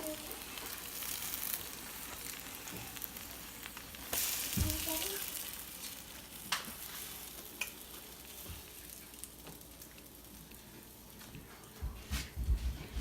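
Egg-dipped bread frying in ghee in a pan, sizzling steadily, the sizzle fading somewhat in the second half. A few sharp clicks and low knocks of a utensil against the pan come in between, with a louder burst about four seconds in and knocks near the end.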